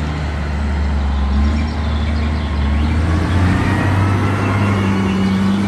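John Deere 744H wheel loader's diesel engine running, a steady low drone that steps up slightly in pitch about three seconds in.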